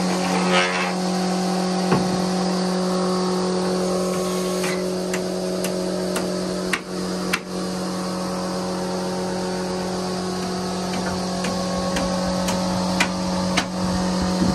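Electric wood planer's motor running with a steady hum, with a few sharp knocks of wood being handled.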